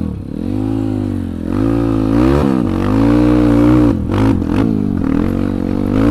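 Honda CRF150L dirt bike bored up to 266cc, its single-cylinder four-stroke engine revving up and dropping back several times under hard throttle while ridden uphill on dirt. A few sharp knocks about four seconds in.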